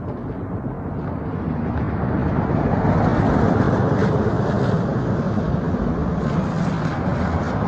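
A motor vehicle passing close by on the street, its engine and tyre noise swelling over the first few seconds and then holding steady.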